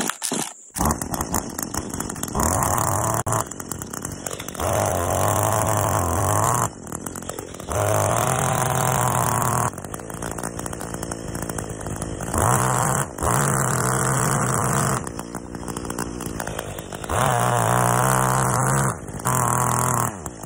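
Mantis two-stroke mini tiller engine coming in about a second in. It then goes back and forth between idle and high revs, with several louder stretches of one to two seconds, as its tines churn through a compost pile.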